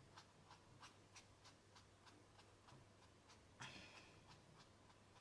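Faint ticking of a Spectrum Noir Aquamarker's brush tip dabbing colour onto stamped card stock, about three light taps a second, with one longer stroke about three and a half seconds in.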